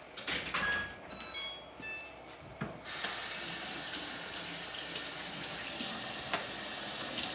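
A few faint short high tones, then about three seconds in water starts rushing into a washing machine as it begins its fill, a steady hiss that keeps going.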